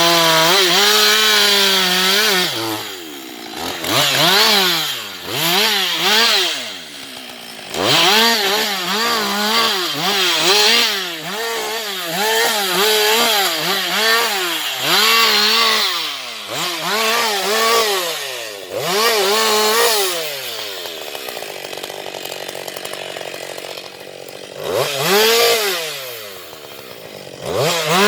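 Husqvarna 560XP two-stroke chainsaw with its throttle opened and closed over and over, the engine speed rising and falling about once a second. It holds a steady high pitch at the start, drops to a lower steady run for a few seconds late on, and climbs back to high revs at the end.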